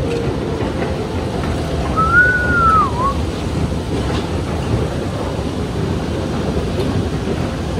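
London Underground Jubilee line train running, a steady loud rumble, with one brief squeal gliding up and down about two seconds in.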